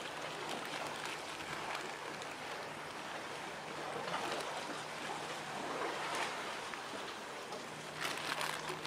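Outdoor waterfront ambience: small waves lapping and splashing, with wind, and a few louder splashes about four, six and eight seconds in. A faint steady low hum runs underneath and grows slightly stronger near the end.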